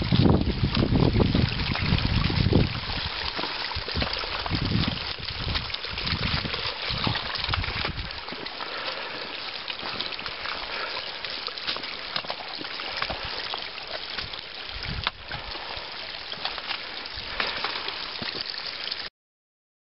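Meltwater trickling and running over a wet, rocky trail as a steady hiss. In the first couple of seconds wind rumbles on the microphone. The sound cuts off suddenly near the end.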